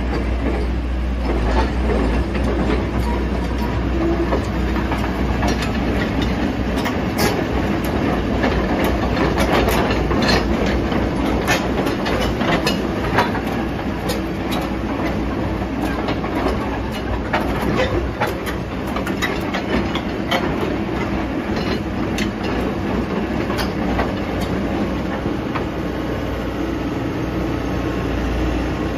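Komatsu PC120-6 excavator's diesel engine running with a steady low rumble, over a continual irregular metallic clatter of clanks and clicks.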